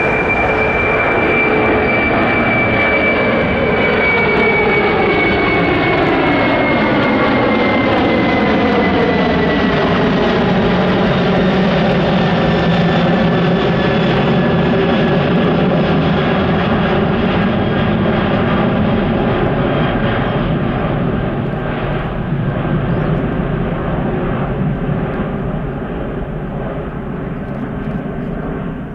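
A Boeing 747-400F freighter's four jet engines at climb power as it passes overhead after take-off. The loud engine noise carries whining tones that fall in pitch over the first ten seconds or so as it goes by, then fades slowly near the end as the jet climbs away.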